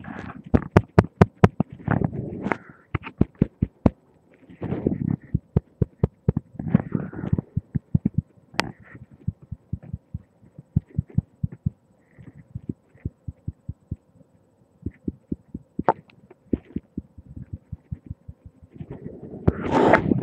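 Body sounds picked up by a webcam microphone pressed against the head: irregular sharp clicks, often several a second, between patches of low muffled rubbing. Near the end a loud low rumble swells up.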